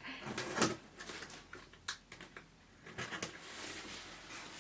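Cardboard and plastic packaging being handled and pulled open: irregular light clicks and short rustles.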